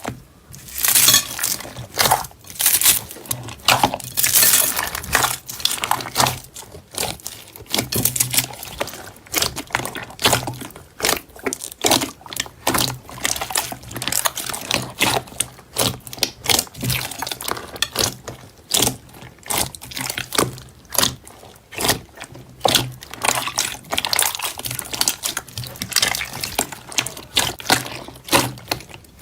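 Hands squishing, poking and stretching soft slime, making a dense, irregular run of wet clicks and crackles.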